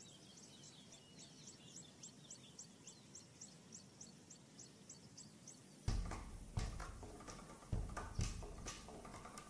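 Warthog wallowing in mud at the water's edge: a run of sudden wet thuds and squelches starting about six seconds in. Before that, a faint high chirp repeats about three times a second.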